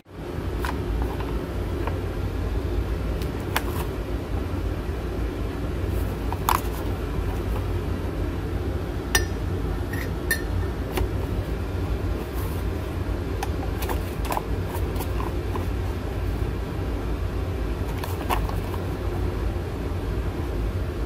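A steady low mechanical hum, like a fan or air conditioner, with a scattering of light clinks as a metal spoon knocks against a glass jar and scoops rye flour into it.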